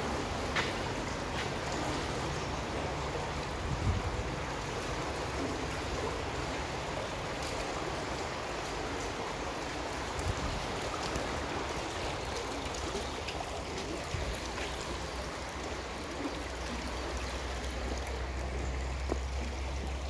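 Small woodland brook flowing, a steady rush and trickle of water, with a few faint knocks. A low rumble grows stronger over the last few seconds.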